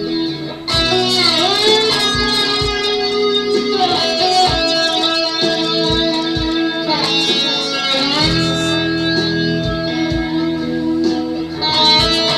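Electric guitar playing a lead line: long held notes with pitch bends and slides.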